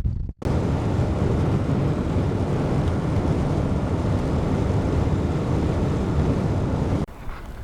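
Steady road and engine noise of a moving car, an even low rumble that cuts off abruptly near the end.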